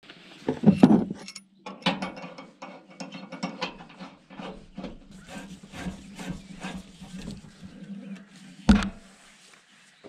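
Metal clicks, scrapes and knocks from handling a camp stove's propane regulator and a one-pound propane cylinder as they are fitted to the stove. There is a heavier clatter in the first second, then a long run of small rapid clicks and scrapes, then one sharp knock near the end.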